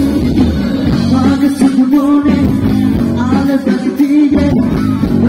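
Live band playing a song: guitars and a lead singer's voice over the band, heard from the audience.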